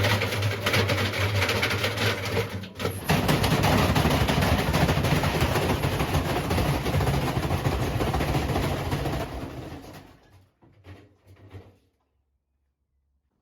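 Washing machine running hard with a low motor hum under loud, continuous rattling and knocking, typical of a drum being forced to self-destruction. The noise dies away about ten seconds in and stops.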